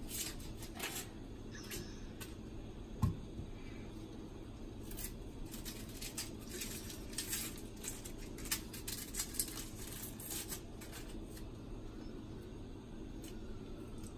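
Dry onion skins crackling and rustling as a white onion is peeled with a small knife, with scattered short scrapes and clicks. A single low thump about three seconds in.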